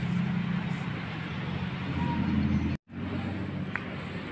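Steady low mechanical hum over outdoor background noise. The sound drops out completely for a split second just under three seconds in.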